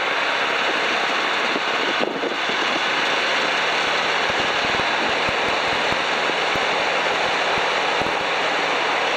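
Piper PA-12 Super Cruiser's engine and propeller at full takeoff power, heard inside the cockpit as a steady, loud, even rushing noise. Through the second half, short low thuds come as the tailwheel aircraft rolls over the bumpy grass strip.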